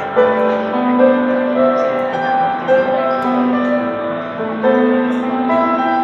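Grand piano played live: a slow piece of held notes and chords, with new notes struck every second or so.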